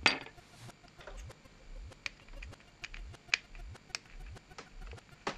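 Small sharp clicks and taps of a plastic headphone earcup and a tiny screwdriver being handled while the circuit board's screws are removed. The loudest click comes right at the start and a few scattered ones follow. A faint low throb repeats about twice a second underneath.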